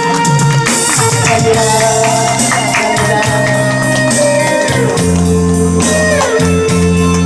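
Instrumental break of a Korean pop ballad, with a guitar melody with bending notes over held keyboard chords and a steady drum beat.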